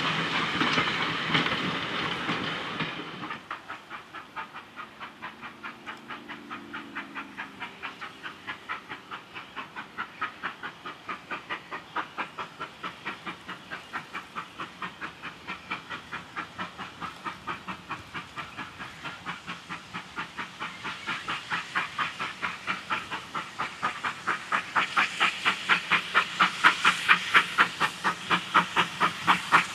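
A GWR 56XX 0-6-2 tank steam locomotive working a train, its exhaust beats chuffing at about four a second and growing louder as it approaches. The first few seconds are passenger coaches rolling past with a steady rumble.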